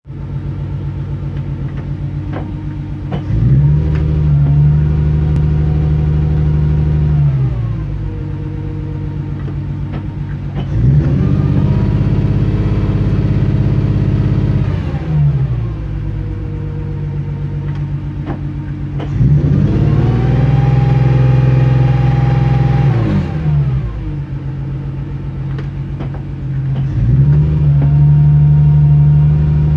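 BMW E36 M3 3.2-litre S50B32 straight-six idling. Its idle speed rises smoothly to a higher steady idle, holds for about four seconds, then settles back, four times over, as the engine software switches between its maps; each map is marked by its own raised idle speed. Short clicks from the gear lever come between the rises.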